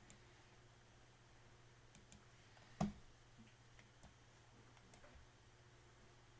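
A few faint, scattered computer mouse clicks, with one louder knock a little under three seconds in, over near-silent room tone.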